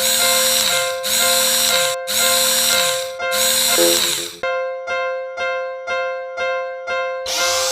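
Level crossing warning bell ringing with a steady ringing tone. For the first four seconds it is overlaid by four long, harsh blasts about a second apart; after that it sounds as plain strikes about twice a second.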